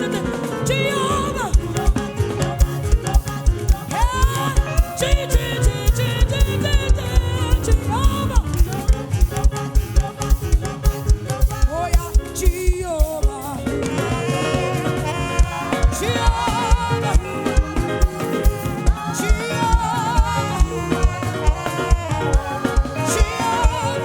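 Live worship band music with a steady, driving drum beat under pitched instrumental lines.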